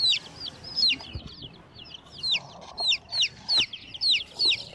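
Baby chicks peeping: a stream of short, high cheeps, each falling in pitch, several a second, with a brief lull partway through.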